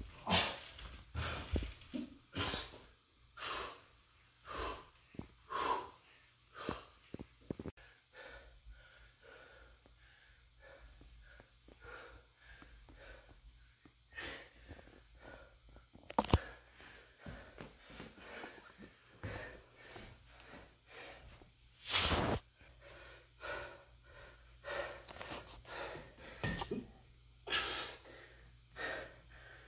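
A man breathing hard while exercising, with forceful puffed exhales: a quick run of them at first, then sparser breaths. A single sharp click comes about sixteen seconds in.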